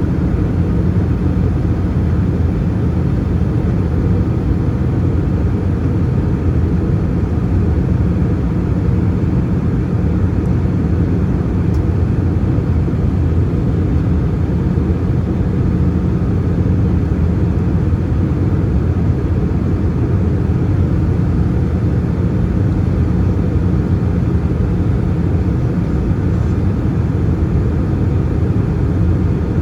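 Steady cabin noise of an Airbus A320-214 in flight, heard from a window seat: an even low rumble of its CFM56 engines and the airflow past the fuselage.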